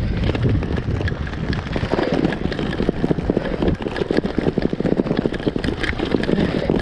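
Road bike rattling over cobblestones (pavé): a continuous, dense clatter of rapid jolts from the frame, handlebars and the gear mounted on them.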